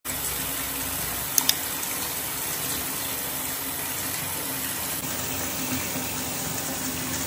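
Bathtub tap running, a steady stream of water splashing onto the tub floor near the drain. Two sharp clicks come close together about a second and a half in.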